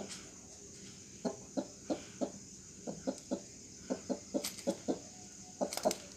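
Broody hen clucking in short low clucks, two or three a second in runs with short pauses, as she shifts about over the eggs she is sitting on. A couple of sharp clicks come near the end.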